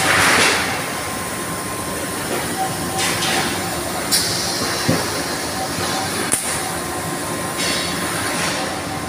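Steady din of heavy factory machinery, with a few sharp metallic clanks a little past the middle and a high hiss that lasts a few seconds.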